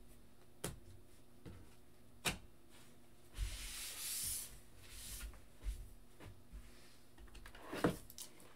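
Handling noise on a tabletop: several light clicks and taps of cards and plastic card holders being set down, with a brushing, rustling slide across the table a little over three seconds in.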